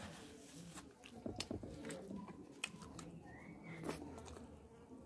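Faint close-up eating sounds: wet chewing, lip smacks and sharp mouth clicks as fish and rice are eaten by hand. A brief whistle-like tone rises and holds for about half a second, a little past three seconds in.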